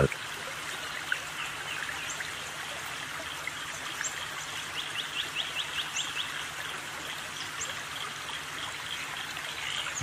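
Forest field recording: an even, steady hiss with scattered thin, high bird calls, and about five seconds in a quick run of some eight short descending notes, roughly six a second.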